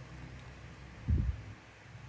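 A single soft, low thump about a second in, like a hand bumping the work surface while handling fishing line, over faint steady background hiss.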